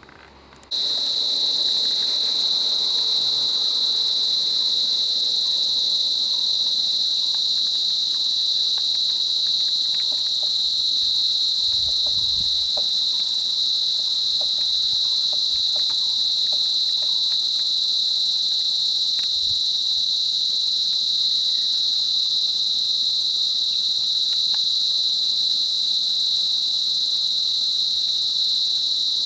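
Insect chorus: a loud, steady, high-pitched drone that starts abruptly just after the beginning and holds unchanged.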